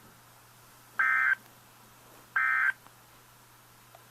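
Two short bursts of Emergency Alert System SAME digital data tones, a harsh electronic warble about a third of a second long, the first about a second in and the second about a second and a half later. These are the end-of-message bursts that close the alert, with a faint steady hum between them.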